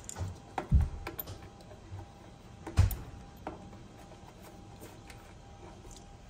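Hands and a small tool working a nut off the control-knob shaft on a MIG welder's sheet-metal front panel: light scattered clicks and two dull knocks, one about a second in and another two seconds later.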